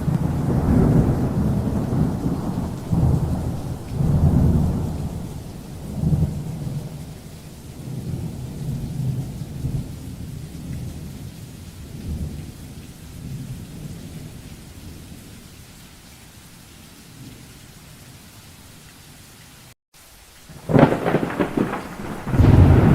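Thunder rolling in long low rumbles over steady rain, dying away until only the rain hiss remains. A split-second dropout to silence comes just before 20 s, then a sharp thunderclap and a fresh loud rumble near the end.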